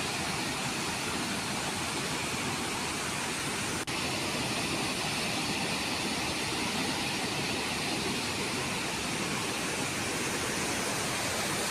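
River in flood, its muddy water rushing over a weir and churning in the rapids below: a steady, even rushing noise with a brief break about four seconds in.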